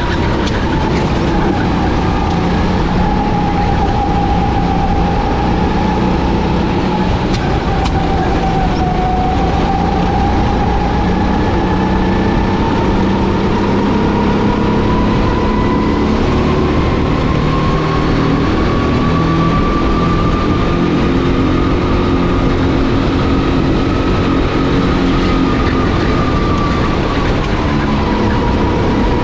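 Racing kart engine running under load on track, with a dense rumble under a tone that sinks slowly over the first several seconds, then climbs gradually and drops again near the end.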